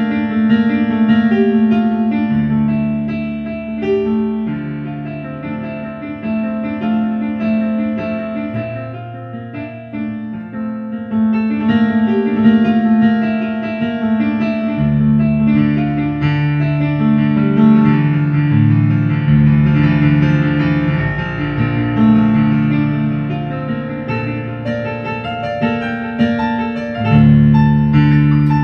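Background piano music with slow, held chords over a changing bass line.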